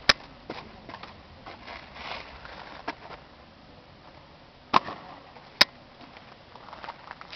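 Sharp slaps from hands catching and striking drill rifles during a rifle drill routine: one loud crack at the start, a softer one about three seconds in, and two more under a second apart just before five seconds. Soft boot steps and scuffs on pavement in between.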